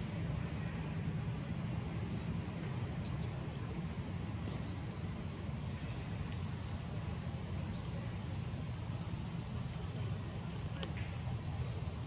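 Outdoor ambience: a steady low rumble with brief high chirps and short rising whistles every few seconds.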